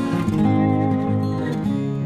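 Outro music: an acoustic guitar playing, with strummed chords.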